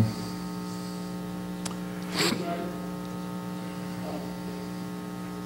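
Steady electrical mains hum from the hall's sound system. A brief sharp noise comes about two seconds in.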